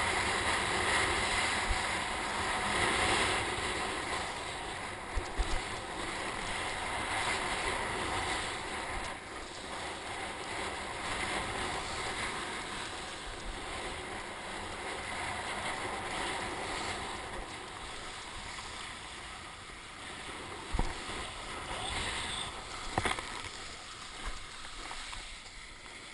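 Strong wind and breaking surf: a steady rushing noise that swells and eases, with a few short knocks about five seconds in and again near the end.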